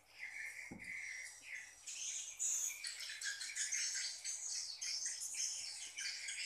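Edible-nest swiftlets twittering, many short high chirps overlapping without a break. There is one brief low thump under a second in.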